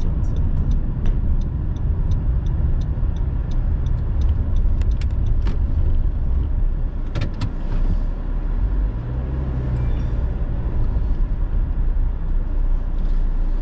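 Car on the move: steady road and engine rumble, with a run of quick, even ticks, about three a second, over the first five seconds or so.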